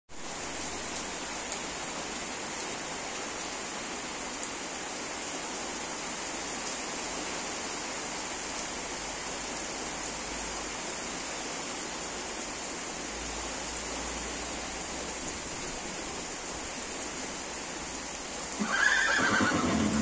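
Steady rain falling on a corrugated metal stable roof. Near the end a horse whinnies once, loudly, for about a second and a half.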